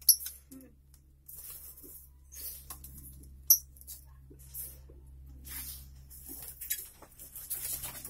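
Rustling, scraping and a few sharp knocks from hands working at a wooden bird cage's string-tied door and its cloth cover, with the loudest knock about three and a half seconds in.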